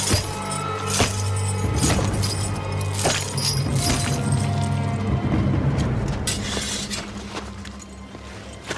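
Dramatic film score: a sustained low drone with sharp hits about once a second, thinning out and getting quieter in the last few seconds.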